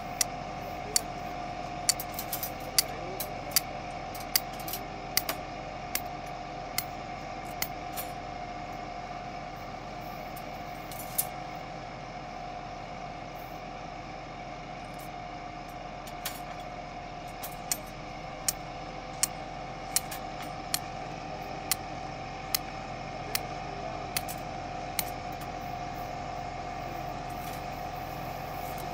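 Farm tractor engine running steadily at low speed, with a steady whining tone over it. Sharp clicks come about once a second in two runs, the first near the start and the second in the second half.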